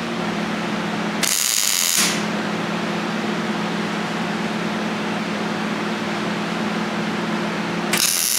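Two short, harsh bursts from a power tool, each under a second, about a second in and again near the end, over a steady machine hum.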